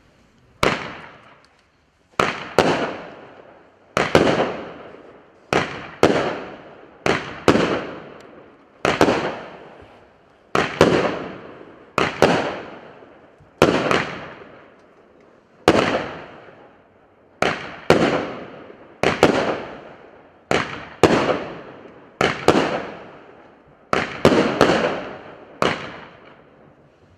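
A 16-shot firework cake of 0.8-inch tubes firing shot after shot: sharp bangs about one a second, some in quick pairs, each fading out over about a second.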